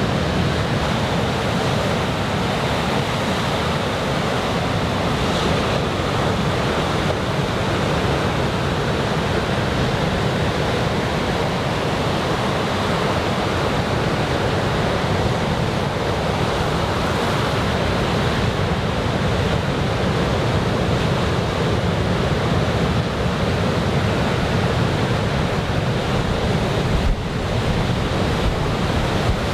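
Big typhoon-swell surf breaking along a sandy beach: a steady, loud wash of waves, with wind on the microphone.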